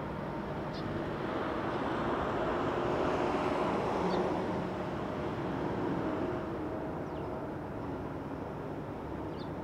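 Boeing 747-8's four GEnx turbofan engines on final approach for landing: a steady jet roar with a faint engine hum in it, swelling as the airliner nears, loudest about three to four seconds in, then easing a little.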